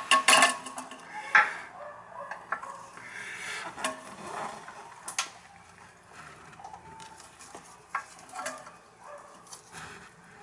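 Scattered clicks, clinks and scrapes of tools and toilet tank hardware being handled as the tank-to-bowl bolts, which are loose, are worked free. The sharpest clicks come right at the start and about a second and a half in.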